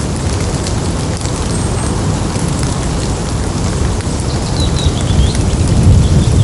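Rain dripping steadily off wet leaves, with many small ticks of drops over a low rumble of thunder that swells near the end.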